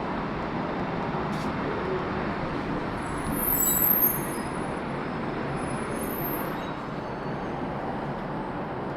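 O-Train Line 1 light rail train (Alstom Citadis Spirit) arriving: a steady rumble, with a high-pitched squeal from about three seconds in until nearly seven seconds, loudest around four seconds.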